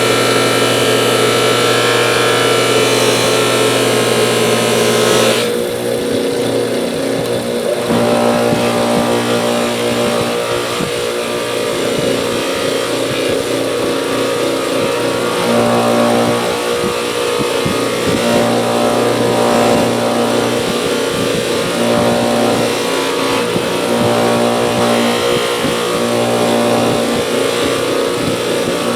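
Electric bench buffer running with a steady motor hum while pliers are polished on the wheel. The tone changes abruptly about five seconds in, then rises and falls every few seconds as the work is pressed in and eased off.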